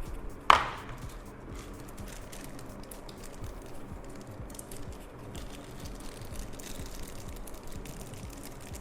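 Hands handling a mechanical keyboard and its packaging: one sharp click about half a second in, then faint scattered light ticks and rustles, over soft background music.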